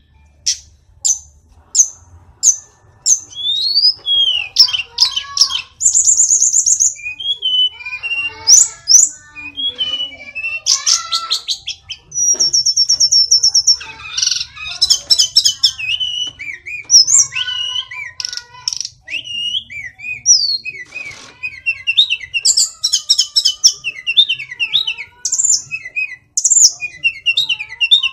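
Hill blue flycatcher (tledekan gunung) singing a long, varied song. It opens with a string of short high notes, roughly two a second. It then runs into quick whistles, sweeping notes and rapid high trills.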